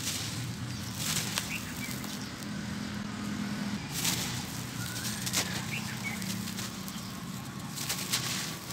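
Hands crushing and crumbling a dry block of sand-cement: a steady gritty rustle of grains and falling powder, with sharper crunches as the block gives way about a second in, near four and five and a half seconds, and again near the end.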